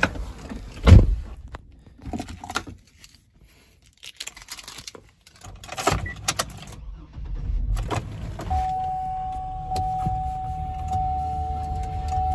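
A loud thump about a second in and scattered clicks and rustling at the ignition, then the 2003 GMC Envoy's 4.2-litre inline-six cranks and starts about eight seconds in and settles into a steady idle, with a steady high tone over it.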